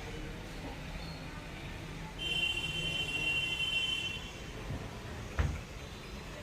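A steady high-pitched electronic beep held for about two seconds, then a single knock, over a low background hum.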